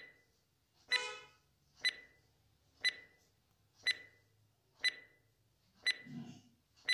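Countdown timer sound effect ticking once a second, each tick a short sharp click with a brief beep. The stroke about a second in rings longer with a pitched tone.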